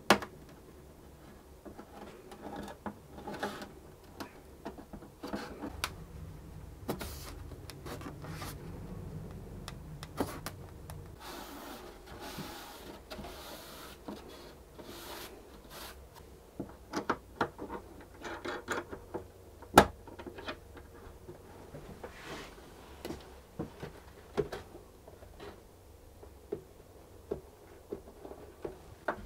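Quiet handling sounds on a cello's wooden rib during crack gluing: scattered light clicks and knocks, soft rubbing about twelve seconds in as excess glue is wiped off with a cloth, and a sharp click near twenty seconds as the clamps are handled.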